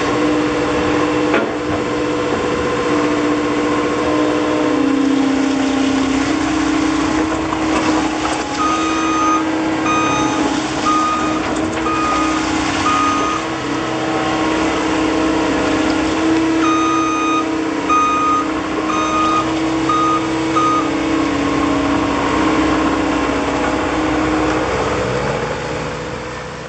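Volvo MCT125C tracked skid steer loader's diesel engine running, its pitch stepping up and down as the machine works, with a reversing alarm beeping in two runs of about four seconds each. The sound fades out near the end.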